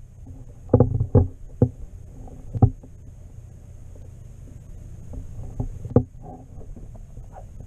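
Muffled underwater sound from a camera submerged beside a canoe hull: a steady low rumble of water moving past, with dull knocks, a quick run of them about a second in, another a moment later and one more near the end.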